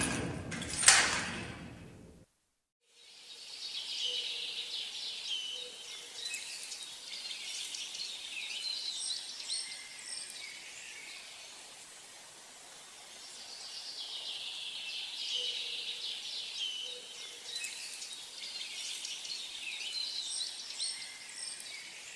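Music ends with two loud strokes in the first two seconds, then after a moment of silence small birds chirp and sing over a faint steady outdoor hiss, the birdsong swelling in two similar waves about ten seconds apart.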